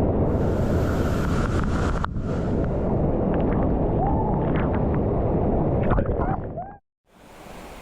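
Waterfall: a steady, dense roar of falling water, with a few short rising calls over it in the second half. The roar cuts off abruptly about seven seconds in.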